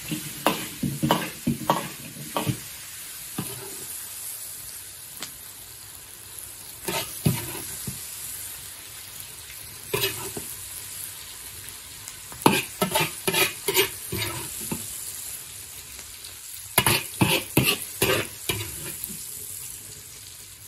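Twice-cooked pork sizzling in hot oil in an iron wok, a steady hiss, with a metal ladle scraping and knocking against the wok in short clusters as it is stir-fried over a fire the cook finds too hot.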